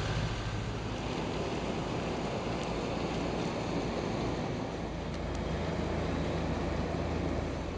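Steady outdoor street noise of slow, queued road traffic, with wind rumbling on the microphone; the low rumble grows a little stronger about five seconds in.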